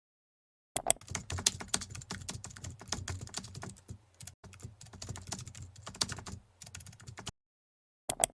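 Rapid typing on a computer keyboard: a dense run of keystroke clicks that stops about seven seconds in, then two more keystrokes near the end.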